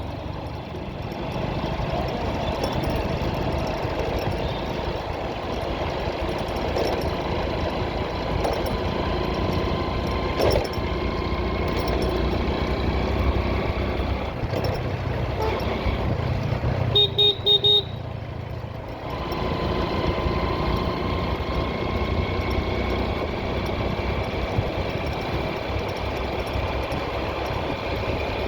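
Steady vehicle engine and road noise while riding in traffic. About seventeen seconds in, a horn sounds in a quick run of three or four short beeps. The engine noise drops briefly after that and then picks up again.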